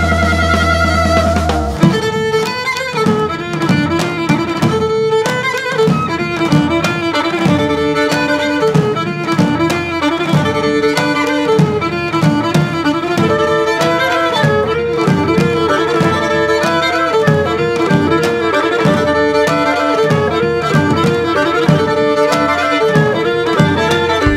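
Instrumental band music led by violin and clarinet over bass and drums. A held chord with deep bass for about the first two seconds, then a quick, rhythmic dance passage with steady percussion under the melody.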